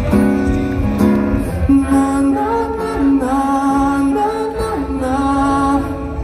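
Live acoustic pop ballad: a sung melody with long held notes over acoustic guitar and band, played loud through a festival PA.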